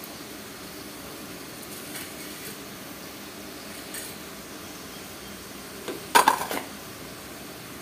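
Cumin, mustard and coriander seeds sizzling faintly in hot oil in a metal kadhai, with a couple of light ticks and then a brief clatter of metal kitchen utensils about six seconds in.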